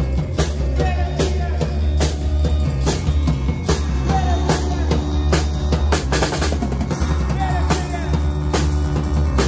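Live band playing with no vocals: a drum kit beats out a steady rhythm on snare and bass drum over a loud, sustained bass line and held tones.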